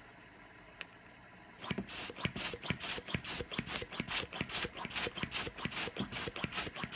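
Hand balloon pump blowing quick puffs of air in a steady pumping rhythm, about three strokes a second, starting about a second and a half in.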